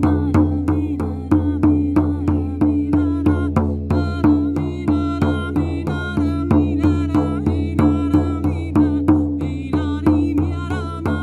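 Shaman frame drum beaten in a steady pulse of about three strikes a second, over a low sustained drone, with a wavering high vocal toning line above.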